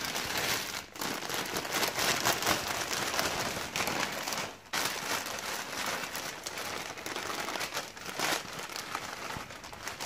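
A plastic potting-soil bag crinkling and rustling as it is squeezed and tipped to pour soil into a plant pot. There are brief pauses about a second in and halfway through.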